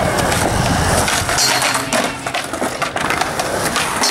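Skateboard wheels rolling on smooth concrete, with scattered clicks and knocks from the board.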